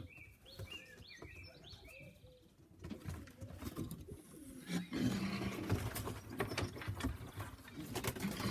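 Domestic pigeons in a loft: a quick run of short, high, rising calls in the first couple of seconds, then low cooing with scattered clicks and rustling of movement from about halfway.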